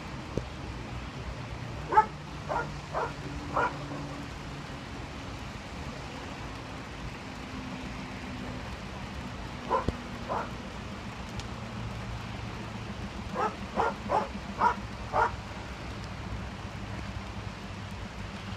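A dog barking in three bouts: four barks about two seconds in, two near the middle, and a quicker run of about six near the end, over a steady low hum.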